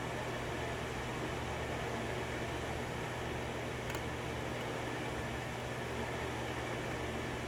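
Steady background hum and hiss, like a fan or air conditioner running, with one faint tick about four seconds in.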